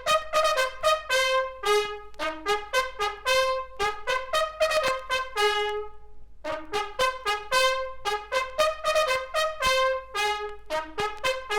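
Japanese army bugle playing a brisk military call: quick, separate notes jumping between a few natural bugle pitches, with a short break about six seconds in.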